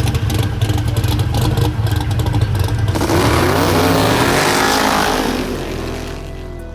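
A drag-racing car's engine running with a loud, lumpy low note, then accelerating hard about three seconds in, its pitch rising as it pulls away and fades into the distance.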